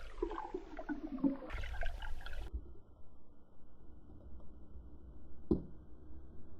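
Water sloshing and bubbling around a camera going under the surface, then the dull, muffled hush of the camera underwater from about two and a half seconds in, with a single knock near the end.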